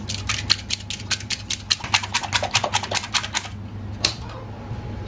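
Spring whisk beating eggs in a small steel bowl, its coil tapping against the metal about six times a second until it stops about three and a half seconds in. A second later comes a single sharp click from a hand-held gas lighter sparking at the stove burner.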